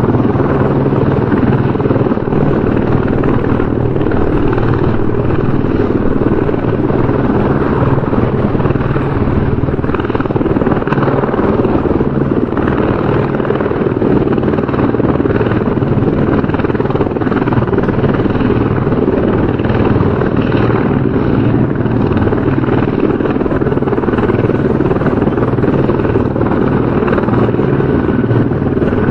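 Helicopter rotor and engine noise, loud and steady without a break.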